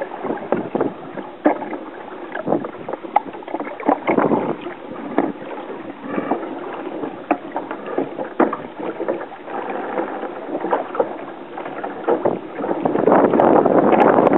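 Water sloshing against the hull of a capsized wooden Sabre dinghy, with frequent short knocks and clatter from the boat and its fittings. About thirteen seconds in, a louder steady rush of water and wind sets in as the dinghy comes upright.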